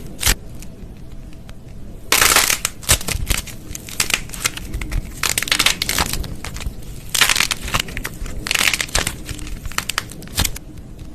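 Slime being squeezed and pressed by hand, giving sharp crackling and popping clicks that come in several dense bursts, the loudest about two seconds in, with others around five, seven and nine seconds.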